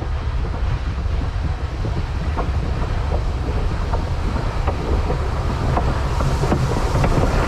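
Train running, a steady low rumble with scattered light clicks, slowly growing louder.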